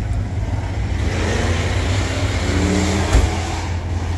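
A car engine running with a steady low drone, growing louder about a second in, with a short knock a little after three seconds.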